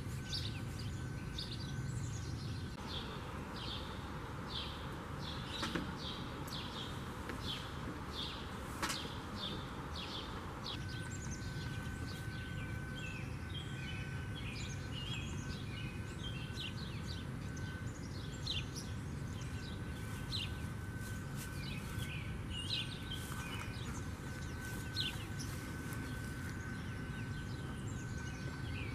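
House sparrows chirping: a long run of short, repeated chirps, about two a second, over a steady low background rumble.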